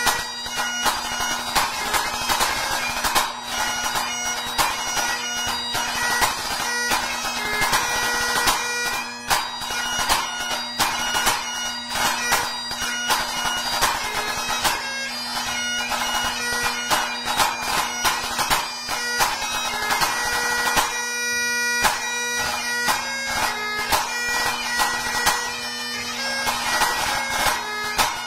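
Pipe band snare drum played in rapid, closely spaced stick strokes over Great Highland bagpipe accompaniment: the pipe drones hold one steady tone under the chanter's melody.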